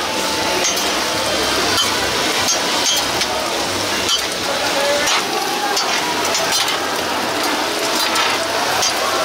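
Sundae, pork intestines and vegetables sizzling as they stir-fry on a hot flat griddle, with repeated sharp clicks and scrapes of metal spatulas against the griddle as the food is tossed.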